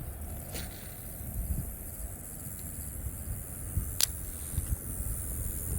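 Steady high-pitched chorus of insects, with a low rumble underneath and a single sharp click about four seconds in.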